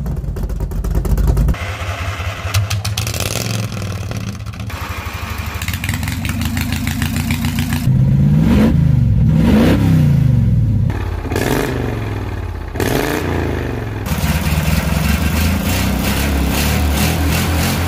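Engine clips cut together: a car engine running, then revved up and down in several quick blips, then a small mower engine running steadily with a rapid putter.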